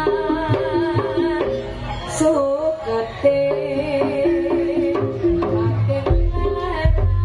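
Live Javanese jaranan gamelan music: hand drums beating steadily under a wavering pitched melody, with a deep low beat coming in near the end.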